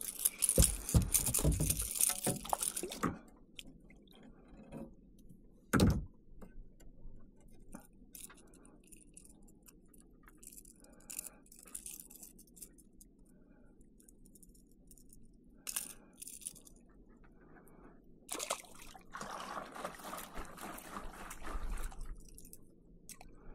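A small snook flapping and splashing on the line at the water's surface beside a kayak, then scattered clicks and rattles of fishing tackle being handled. One sharp knock about six seconds in, and a short stretch of noise near the end.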